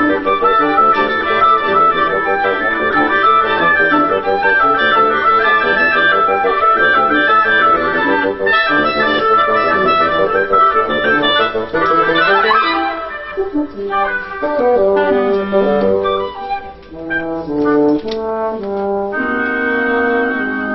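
Woodwind quintet of flute, oboe, clarinet, bassoon and French horn playing live: a dense, busy ensemble passage of quick notes, then about twelve seconds in a quick upward sweep, after which the texture thins to sparser, longer held notes.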